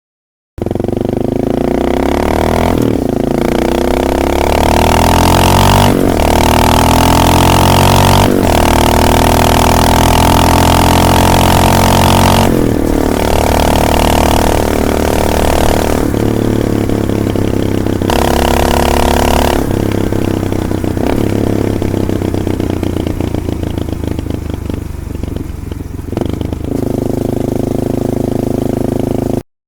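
Honda XR650L's single-cylinder four-stroke engine through aftermarket slip-on exhausts, run loud and accelerating with rising pitch through the gears. The sound changes abruptly every few seconds as one clip gives way to the next.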